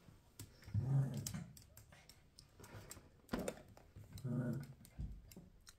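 Small dogs shifting about beside a person: scattered light clicks and rustling, with two short low hums, about a second in and again about four seconds in.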